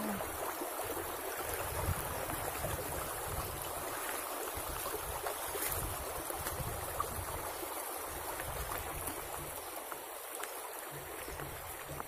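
Shallow forest stream rushing over rocks, a steady wash of water that grows slightly fainter toward the end.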